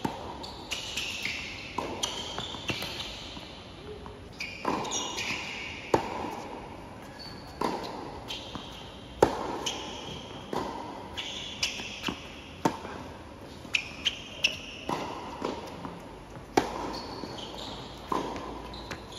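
Tennis rally on a hard court: sharp pops of racket strings striking the ball every second or two, with lighter ball bounces in between and short high squeaks of tennis shoes on the court.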